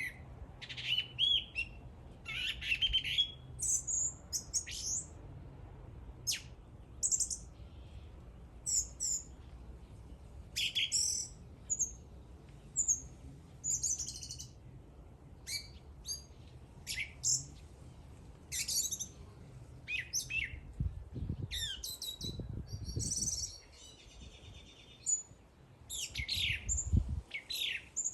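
A songbird singing short, varied phrases of chirps and whistles, one after another with brief pauses. Several low thumps come in during the second half.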